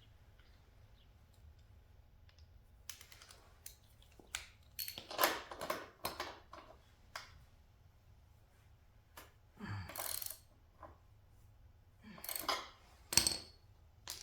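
Hand tools working on the motorbike's rear axle nuts: a scattered series of sharp metallic clicks and clinks, loudest about five seconds in and near the end.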